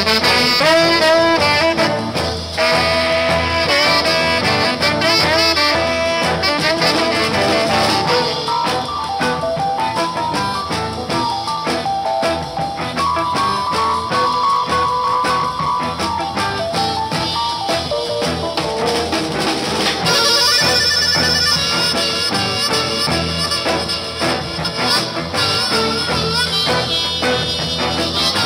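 Instrumental soul music playing at a steady level, a full band arrangement. About two-thirds of the way through, a new lead line with a wavering tone comes in.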